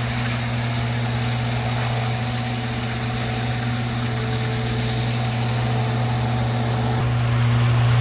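A machine's engine running steadily at a constant speed, an even drone that gets somewhat louder near the end.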